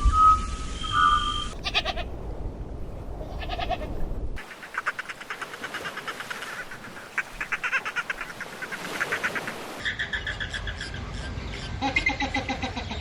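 A string of short spliced clips of farm animals bleating, each call quavering in pitch, after a steady high whistle-like tone in the first second and a half.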